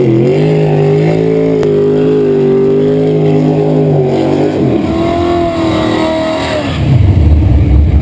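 Fox-body Ford Mustang drag car doing a burnout: the engine revs up and holds steady at high rpm for about four seconds, drops briefly, then holds again at a higher pitch. Near the end a louder, rougher low rumble takes over.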